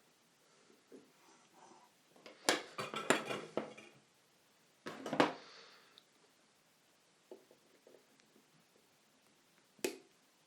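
Metal clinks and clatter of small soldering tools handled on a workbench: a rattling run of sharp clicks, a second loud clatter a couple of seconds later, and a single click near the end.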